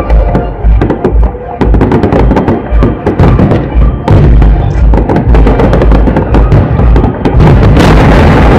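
Fireworks salute bursting in rapid succession: loud booms and crackles, one after another, with music playing along. The crackling grows denser about eight seconds in.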